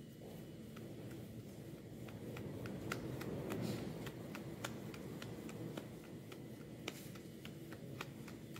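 Soft rubbing and patting of hands rolling mashed-potato mixture into a round patty, with scattered small ticks.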